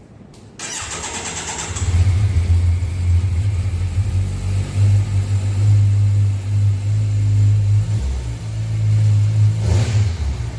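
Kawasaki Versys 1100's inline-four engine being started: the starter cranks briefly about half a second in, the engine catches a second or so later and runs at a deep, steady idle through the exhaust.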